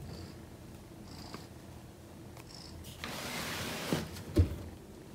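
Kitten purring, a low fine rumble, with a rustle and two soft thumps about three to four seconds in.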